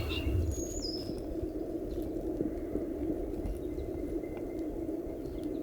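Woodland ambience: a songbird gives a couple of short, high, falling whistles in the first second, over a steady low background rush.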